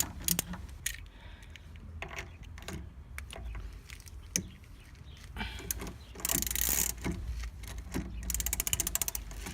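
Ratchet wrench clicking while a car's wheel bolts are unscrewed, with scattered metallic clicks and a fast, even run of ratchet clicks near the end.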